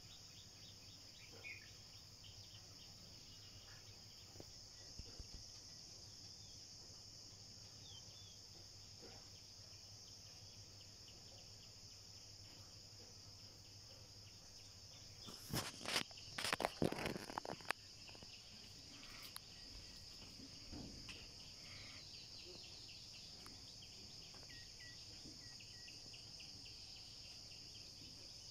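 Faint, steady high-pitched chorus of insects in forest. About halfway through, a cluster of loud knocks for a couple of seconds breaks over it.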